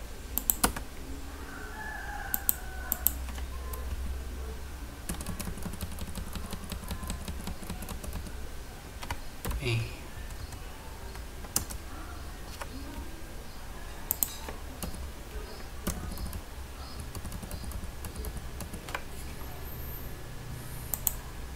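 Computer keyboard typing: scattered single keystrokes and a quick run of keys about five seconds in, over a steady low hum.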